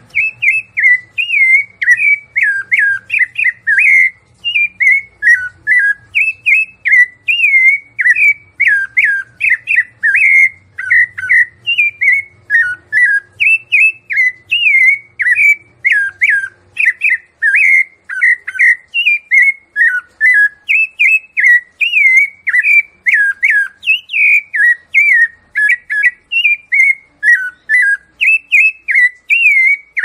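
Rufous-bellied thrush (sabiá-laranjeira) singing the 'piedade Senhor' song type: a rapid, unbroken string of clear notes that mostly slide downward.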